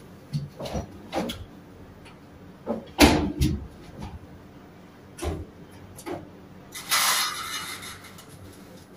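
A series of clicks and knocks from a countertop electric oven being handled, its knobs turned and its door worked, the loudest knock about three seconds in. About seven seconds in comes a longer noisy sound lasting under a second.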